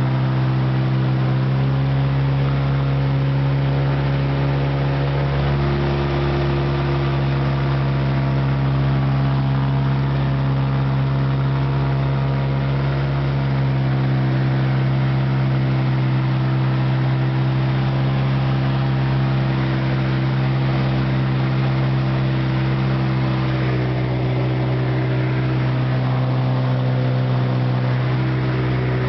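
Seabird Seeker light aircraft's Lycoming piston engine and pusher propeller droning steadily, heard inside the cabin on final approach to landing. The pitch shifts slightly a few times.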